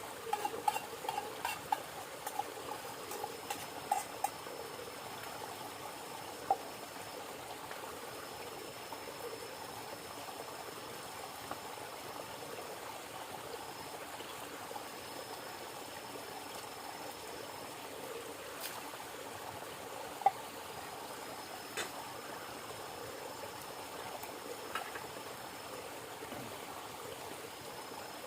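River water flowing steadily, with a few light clicks and knocks in the first few seconds and now and then after.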